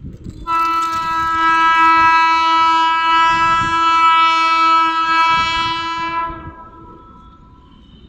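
WAG-12 electric freight locomotive sounding its horn in one long, loud blast of about six seconds, several tones held steady in pitch, over the rumble of the running train. The horn cuts off about six and a half seconds in, leaving the train's rumble.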